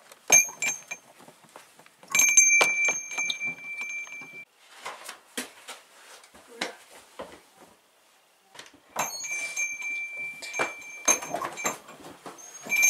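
A small bell rings out several times, each ring starting sharply and fading over a second or two. Alongside it come the knocks and clunks of a wooden door being opened and shut.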